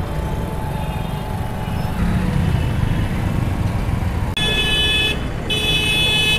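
Street traffic heard from a moving vehicle: a steady engine and road rumble, with a vehicle horn honking twice near the end, each blast under a second long.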